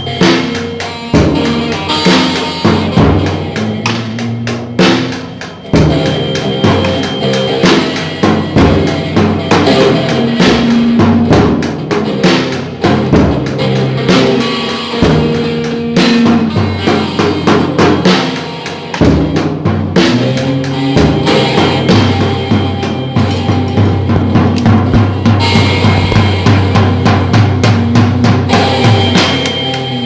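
Music with a drum kit (kick, snare and cymbals) playing a steady beat at about 131 beats per minute, with an acoustic guitar playing along.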